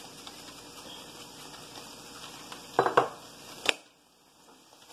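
Kitchen sounds over a stainless steel skillet: a low steady background, then two loud clattering knocks of utensils against the pan about three seconds in, and a sharp click after which the background noise drops away almost to silence.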